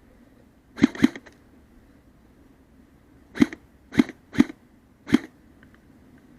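Airsoft gun fired in single shots: two pops in quick succession about a second in, then four more spaced about half a second apart a few seconds later.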